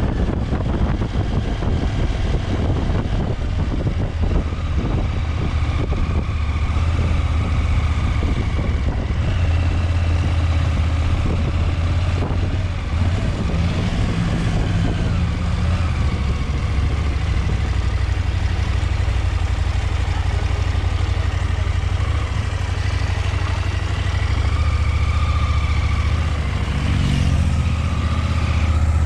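KTM 890 Adventure's parallel-twin engine running at a fairly steady speed while riding, its low note holding nearly constant.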